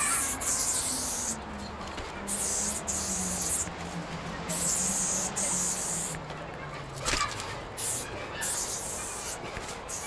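Paint being sprayed in about five short hissing bursts, each roughly a second long, with brief pauses between them.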